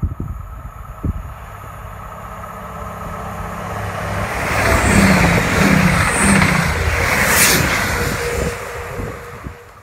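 Class 222 Meridian diesel multiple unit approaching and passing at speed: a rising rush of engine and wheel noise that peaks about five to seven seconds in, then fades quickly near the end.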